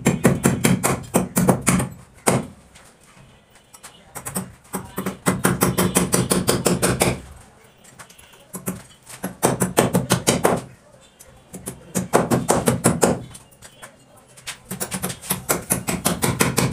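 Repeated bursts of rapid knocking, about ten sharp strokes a second, each burst lasting two to three seconds with short pauses between, from work on a bathroom door frame being fitted.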